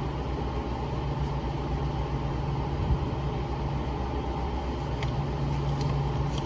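Steady low mechanical hum, with a few faint clicks of a flat-head screwdriver working a plastic fuel-line clip.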